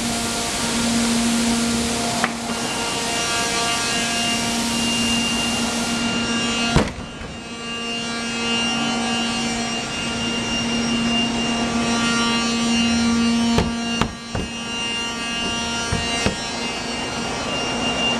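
Steady mechanical hum with a droning tone, broken by a few sharp thumps on a green HDPE plastic bike box under a drop and stand-on load test; the loudest thump comes about a third of the way in, with a quick run of three more near three-quarters through.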